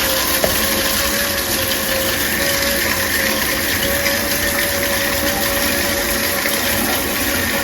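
Water spraying steadily from a newly installed hydro-powered LED shower head during a first test run, with a faint steady whine under the rush of the spray.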